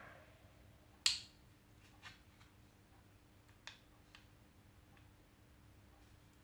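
Sharp plastic clicks from a car power window master switch being handled and pried apart: one loud click about a second in, then a few fainter ticks.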